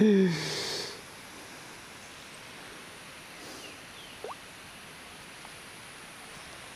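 A short falling vocal sound right at the start, then steady faint outdoor background hiss, with one brief faint rising chirp about four seconds in.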